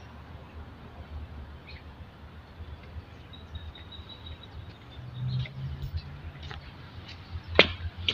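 Outdoor ambience with a steady low rumble and a faint, thin high tone held for about a second and a half in the middle. Near the end there is one sharp click, the loudest sound.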